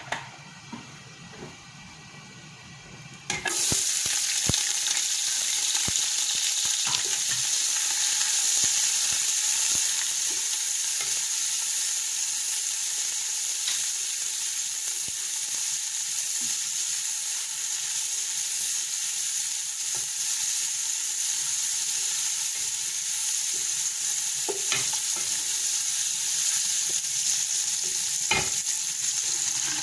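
Cooking pot frying in hot palm oil: a loud, steady sizzle starts suddenly about three seconds in, with a few light knocks of a utensil against the pot.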